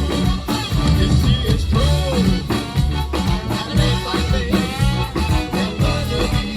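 A swing band playing with a singer, over a steady drum beat and a heavy bass line.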